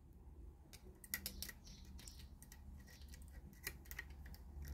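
Faint, irregular metallic clicks and taps of a screwdriver tip working at a washer around a chainsaw's crankshaft, by the oil pump.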